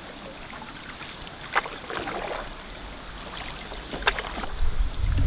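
Water sounds around a canoe, with two short, sharp splash-like sounds, the first about one and a half seconds in and the second about four seconds in. A low rumble of wind on the microphone builds near the end.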